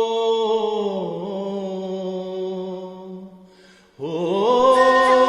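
A singer holds a long drawn-out 'ho' note that slides down a little about a second in and fades away. A new long sung note begins about four seconds in, with light percussion ticks joining it.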